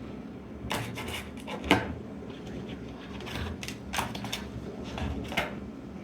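Hands handling small hard laptop parts and drives, giving a series of light clicks and knocks, the sharpest a little under two seconds in.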